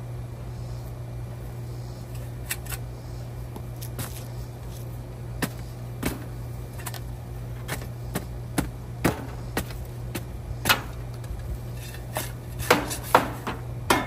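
Irregular sharp clicks and knocks from equipment being handled, coming more often and louder near the end, over a steady low hum.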